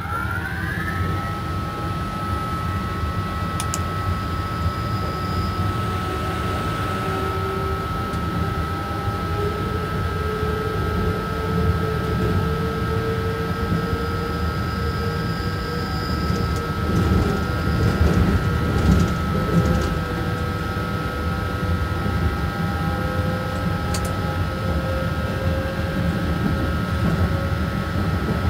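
Cab of an SNCF BB 27300 electric locomotive under way: a steady low rumble of running gear on the track, overlaid by the electric whine of the traction equipment, one high steady tone and a lower one that slowly rises in pitch as the train gathers speed. There are a few sharp clicks, and the rumble grows louder for a few seconds about two-thirds of the way through.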